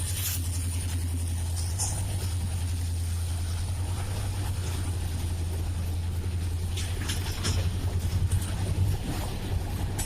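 Steady low drone of an EMD WDG4 diesel locomotive's two-stroke V16 engine working under load as it pulls a long freight train, with irregular knocks about seven seconds in.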